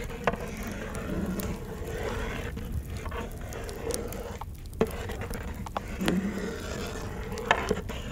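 Long metal paddle stirring and scraping through a large pot of steaming pomegranate juice as it boils down into paste, with a few sharp knocks of the paddle against the metal pot.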